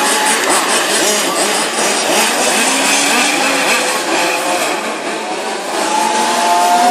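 Several 1:5 scale RC Formula 1 cars with small two-stroke petrol engines racing together. Their engines rise and fall in pitch as they accelerate and brake through the corners. One car's higher whine stands out near the end as it passes closer.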